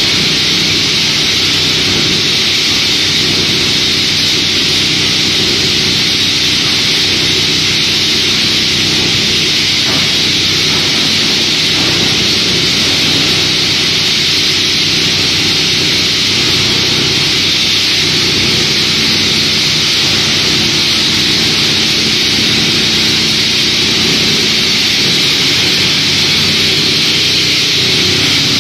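Optima OGB80120 plastic shredder running while plastic offcut strips are fed into it by conveyor: a loud, steady machine noise with a strong hiss over a low hum.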